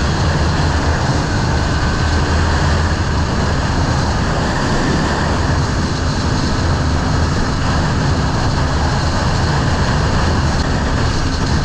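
Motorcycle riding at a steady speed: loud wind rushing over the camera's microphone over the low, even hum of the engine.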